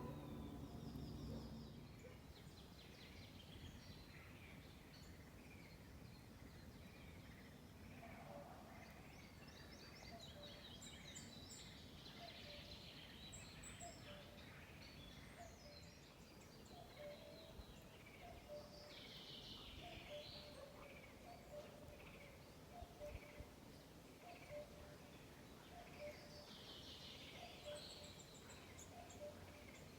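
Faint forest ambience: several birds chirping and trilling, some nearer and some farther off. From about a third of the way in, a short lower call repeats about once a second.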